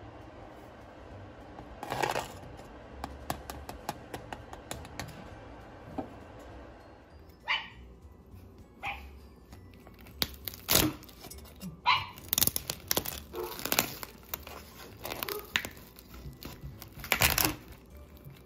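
Cleaver chopping through the crisp crackling skin of a roast rolled pork belly on a wooden board: irregular sharp crunches and knocks, coming thickest in the second half. Before that there is a steady hum, with a few clicks about two seconds in.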